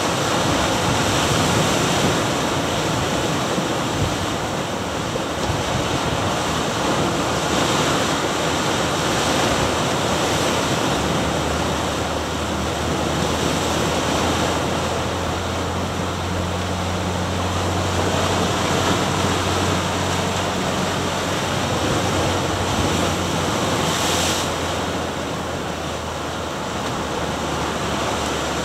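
Ocean surf washing and breaking over granite shore rocks, the noise swelling and easing with each wave. A low steady hum joins about eleven seconds in and fades near the end.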